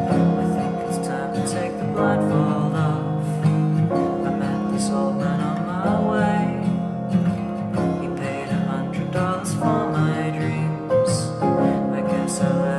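Instrumental passage of a song with no vocals: sustained chords that change every few seconds, with a few brief bright high hits.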